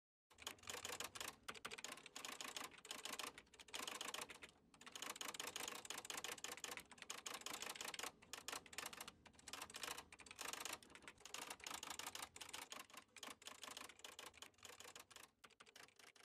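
Typewriter being typed on, its keys striking in quick runs broken by short pauses. It starts abruptly just after the start and fades out near the end.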